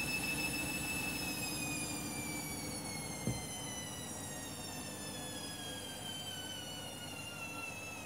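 Candy Grand'O Vita 7 kg front-loading washing machine spinning a half load and slowing down: the motor's high whine falls steadily in pitch and the running noise eases off. A single knock about three seconds in.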